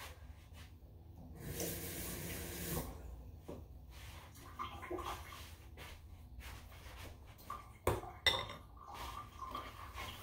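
Kitchen tap running briefly for about a second, then light clinks and knocks of dishes and utensils being handled at the counter, with two sharp knocks near the end.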